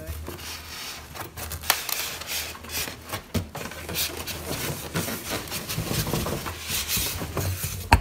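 Foam packing insert rubbing and scraping against a cardboard box as it is handled, with irregular crackles and a sharp click near the end.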